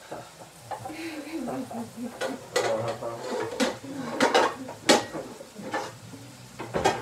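Ground taco meat sizzling in a frying pan, with irregular clinks and scrapes of metal cookware and utensils.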